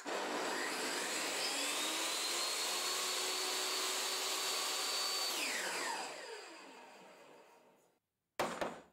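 Electric power saw motor starting up with its whine rising in pitch over the first couple of seconds, running steadily, then switched off and winding down, the pitch falling as it fades over about three seconds. A few sharp clicks follow near the end.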